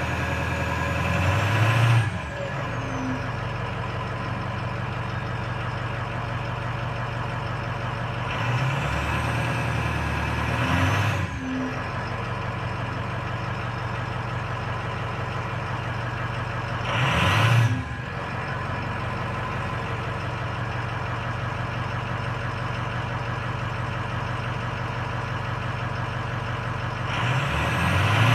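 Stock 6.0 Powerstroke turbo-diesel V8 of a 2005 Ford F-350 idling, blipped four times, roughly every nine seconds. Each rev rises for a second or two, the second one longer, then cuts off suddenly and drops back to idle.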